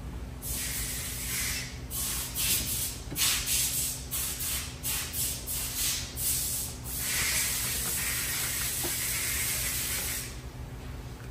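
Creality Ender 3 V3 KE 3D printer running its automatic start-up setup, moving its print head and bed: a hissing sound in short irregular bursts, then steady for about three seconds before it cuts off near the end.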